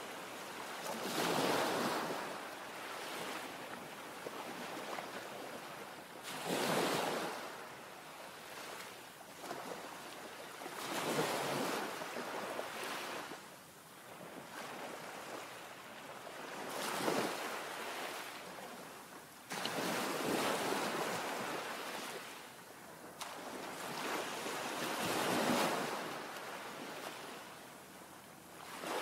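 Sea waves washing in, a noisy rush that swells and fades every four to five seconds, with wind on the microphone.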